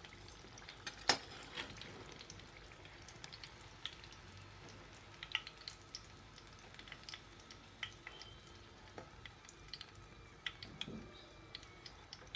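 Samosas deep-frying slowly in oil on a low flame, nearly done: a faint sizzle with scattered small pops and crackles. A sharp click about a second in stands out above the rest.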